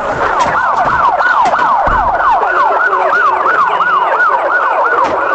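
Police car siren in fast yelp mode, a tone rising and falling quickly, about three times a second.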